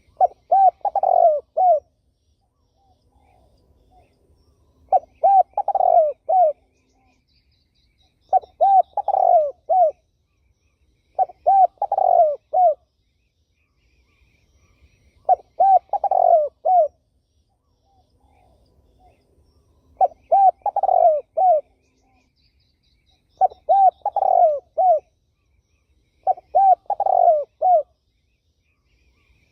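Spotted dove singing: eight phrases of several quick, arched coos, one phrase every three to four seconds.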